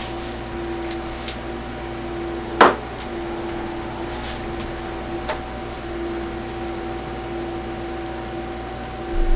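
Steady electrical hum of a running kitchen appliance, holding two pitches. One sharp knock comes about two and a half seconds in, with a few faint clicks before and after it.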